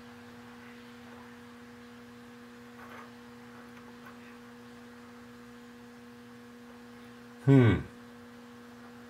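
Steady electrical hum in a machine shop. Near the end comes a short falling 'hmm' from a man's voice.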